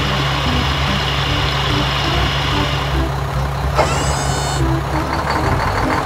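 Cartoon sound effects of a concrete mixer truck: a steady low engine rumble under a hiss that stops about halfway, while concrete pours from the chute. A short rising tone follows, then the engine sound changes as the truck moves off.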